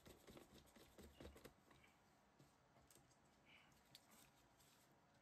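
Near silence, with faint small clicks and taps over the first second and a half and a few isolated ticks after: a small screw being handled and driven into a disc drive's circuit board with a precision screwdriver.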